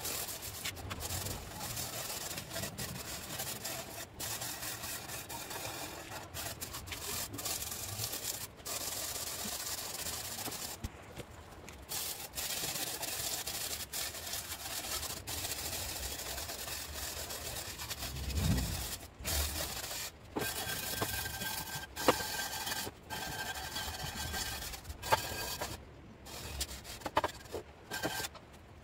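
Hand scraper scraping softened paint off steel diamond-plate in repeated rough strokes, with sharp ticks and knocks as the blade catches on the raised pattern; the paint has been loosened with paint remover. A dull low thump about two-thirds of the way in.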